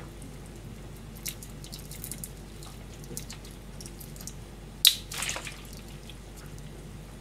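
Raw shrimp being peeled by hand in a stainless steel bowl: small wet clicks and crackles of shell, with one sharp click about five seconds in.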